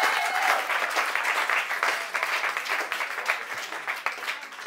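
Small audience applauding, the clapping thinning and dying away toward the end.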